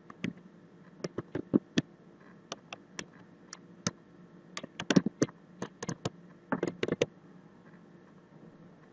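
Typing on a computer keyboard: an uneven run of sharp key clicks, bunched in quick flurries, that stops about seven seconds in.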